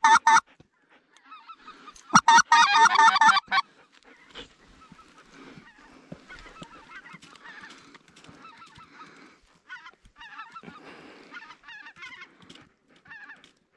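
Goose honking: a short loud burst right at the start and a longer run of rapid honks and chatter about two seconds in, then fainter scattered honks through the rest.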